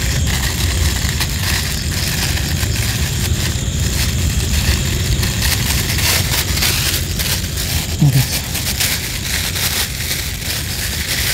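Clear plastic bag crinkling and crackling as it is unwrapped and handled, with constant fine crackles.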